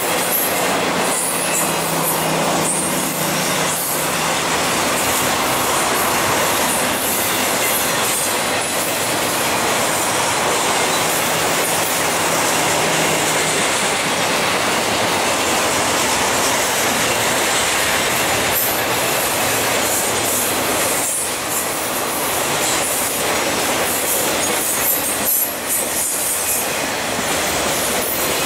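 Intermodal freight cars loaded with highway trailers and containers rolling past: a loud, steady rumble and hiss of steel wheels on rail, with scattered clicks as wheels pass over the rail.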